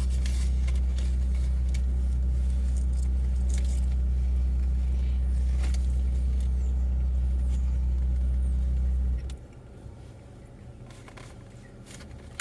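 Car engine idling with a steady low hum that cuts off abruptly about nine seconds in, with a few faint clicks and rustles over it.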